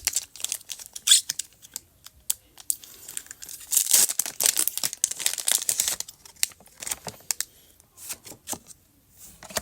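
A Pokémon TCG booster pack's foil wrapper being torn open and crinkled. A dense run of crackling tearing comes in the middle, with scattered crinkles before and after.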